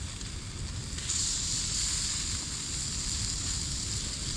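Food sizzling in a frying pan over a wood fire, with a steady hiss that gets suddenly louder about a second in.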